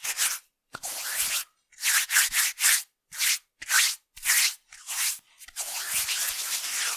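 Palms of two hands rubbed briskly together, making dry swishing friction strokes. Two short rubs open, then a run of quick back-and-forth strokes about two a second, ending in a longer continuous rub.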